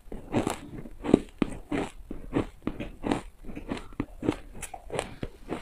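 Crushed red and pink frozen ice being bitten and chewed, a quick run of crisp crunches at about three a second.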